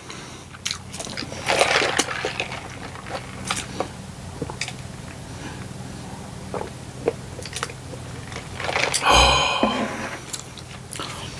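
A person chewing food close to the microphone: scattered wet mouth clicks and smacks, a louder noisy stretch about nine seconds in, and a steady low hum underneath.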